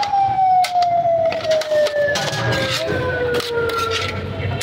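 A siren tone sliding slowly and steadily down in pitch, over repeated sharp clinks of a metal serving spoon against a large aluminium biryani pot.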